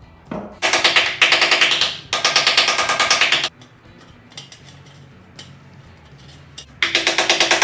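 Power planishing hammer rapidly hammering a steel patch panel for a motorcycle fuel tank, shaping it into a dome. It runs in three bursts of fast, even, ringing blows: two close together near the start and another starting near the end, with pauses between.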